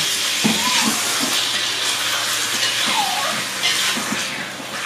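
Chicken pieces and onion sizzling steadily in a hot wok on a gas stove as they are stirred with a metal spatula, the chicken searing until it turns white.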